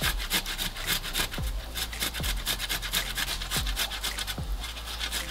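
A ripe tomato being grated on a stainless-steel box grater, in rapid repeated rasping scrapes, several strokes a second.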